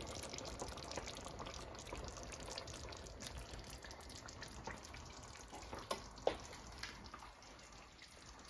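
Faint kitchen background: a low crackle with scattered light ticks and a couple of soft clicks about six seconds in.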